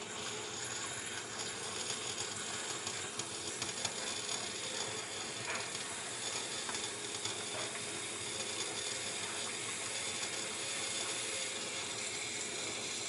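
Brass La Pavoni lever espresso machine heating up: a steady hiss with scattered light ticks.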